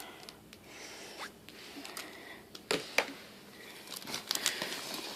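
Faint rustling and handling of small plastic surprise-egg packaging, with a couple of sharp clicks about three seconds in and more rustling near the end.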